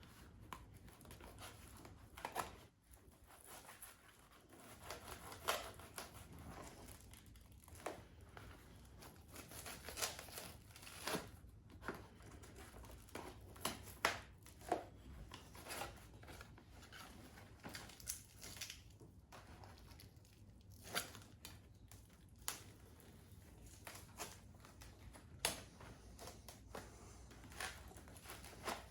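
Shrink wrap and masking tape crackling and tearing in irregular snaps as a cured fibreglass seat base is worked free of its foam buck.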